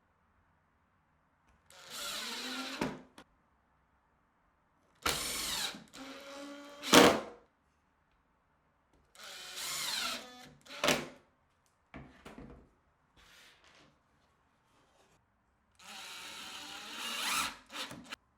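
Power drill running in four short bursts of a second or two each, its motor pitch sweeping within each burst, with a couple of brief blips between them.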